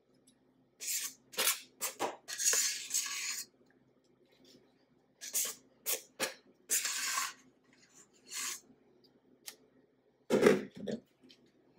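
Metal offset spatula scraping and clicking against a stainless steel mixing bowl while scooping and spreading buttercream frosting: a run of short scrapes and clinks, with a louder knock near the end.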